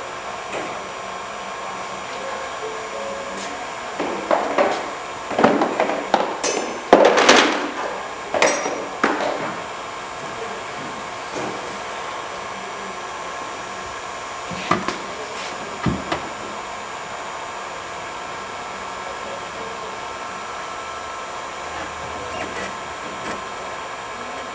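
Irregular knocks, clatter and scraping of hand tools against car body panels, loudest between about four and ten seconds in, with two sharp clicks later, over a steady background hum.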